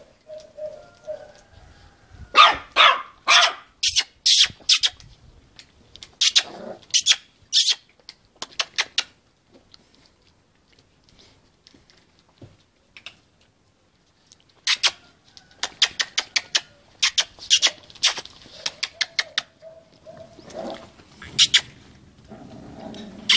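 Puppies yapping: quick runs of short, high-pitched barks, several a second, in bursts with a quiet stretch in the middle.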